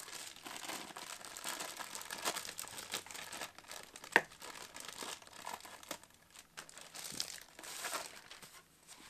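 Plastic packaging crinkling and rustling as a rolled diamond painting canvas is unwrapped, with one sharp click about four seconds in.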